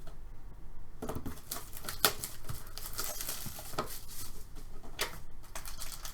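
Trading cards and pack wrappers being handled: irregular rustles and light clicks as a hockey card pack is opened and the cards sorted.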